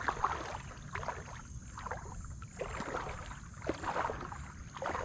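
Water swishing and sloshing around a wader's legs with each step through calm shallows, about one swish a second.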